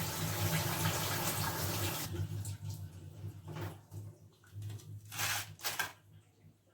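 Water running from a kitchen tap for about two seconds, then cut off, followed by a few short splashes of washing or rinsing.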